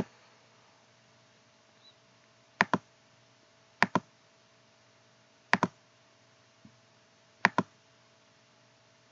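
Computer mouse clicking four times, a second or two apart, each a quick pair of sharp clicks, over a faint steady hum.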